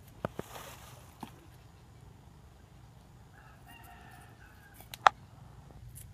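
A rooster crows once, about a second long, a little past three seconds in. Around it come a few sharp clicks from a cleaver cutting a piece of green plant, the loudest near five seconds in.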